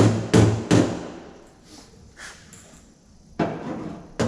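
A steel car door skin being struck from behind with a weighted chisel and no dolly backing it, so each hit rings hollow. There are three quick strikes, a pause of about two seconds, then two more strikes near the end.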